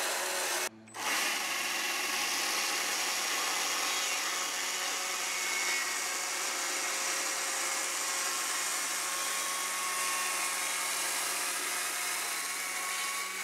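Cordless Stihl battery chainsaw running steadily with a constant motor whine as its chain cuts deep vertical grooves into a wooden log. The sound breaks off briefly about a second in, then carries on unchanged.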